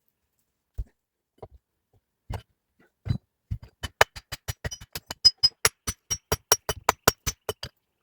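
Sharp knocks: a few spaced ones, then a fast, even run of about six strikes a second with a faint metallic ring, stopping just before the end.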